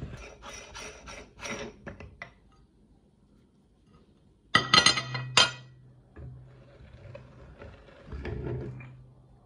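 Metal clinking from a hand-cranked meat grinder's retaining ring and cutting plate being worked by hand: light clicks in the first two seconds, then a cluster of loud, sharp metallic clinks about four and a half seconds in, and softer clatter after.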